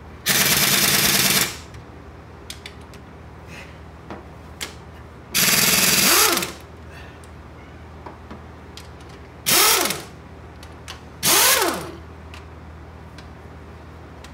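Impact wrench hammering in four short bursts of about a second or less, each trailing off in a rising and falling whine as the tool spins down. It is working at a cylinder head bolt that won't come loose.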